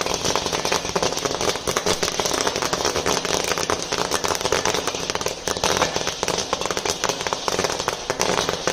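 Sorghum (jowar) grains popping in a hot iron pan under a cotton cloth while being stirred with a spatula: a dense, continuous crackle of many small pops.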